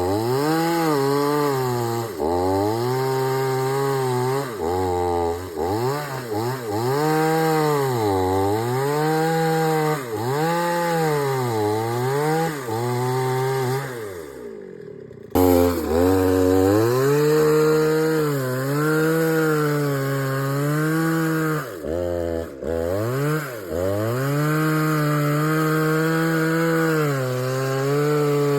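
Two-stroke chainsaw cutting a thick teak trunk. Its engine speed repeatedly sags under load and climbs back as the chain bites the wood. About halfway through it drops to a low idle, then is suddenly back at full speed and cutting again.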